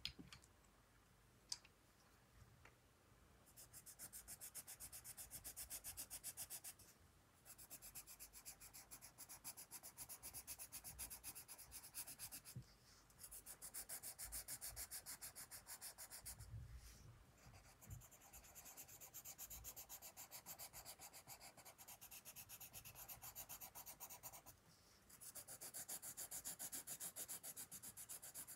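Coloured pencil scratching fast back and forth on sketchbook paper, shading in long runs of quick strokes with short pauses between. Two sharp ticks come in the first couple of seconds.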